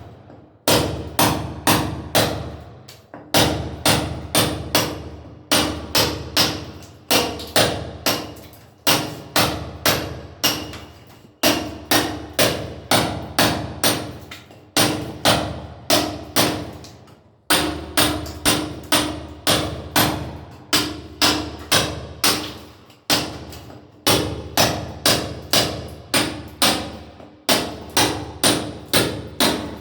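Hammering on a renovation job: repeated sharp hammer blows in quick runs of about four to six strikes, each run broken by a short pause.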